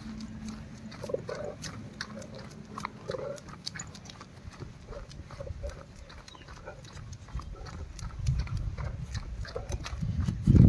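Golden retriever's low animal noises, with many short clicks scattered through; the low sounds grow louder near the end.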